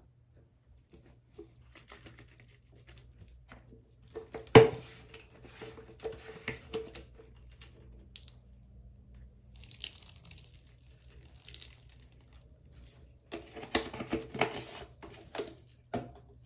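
Green liquid detergent poured in a thin stream onto a sponge in a sink, a soft steady hiss through the middle. Before and after it come clusters of crackly clicks and crinkles, the loudest a sharp click about four and a half seconds in.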